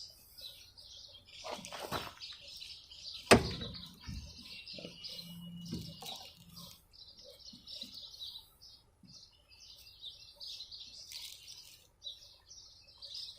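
Small birds chirping continuously, with one sharp click about three seconds in and a few faint knocks.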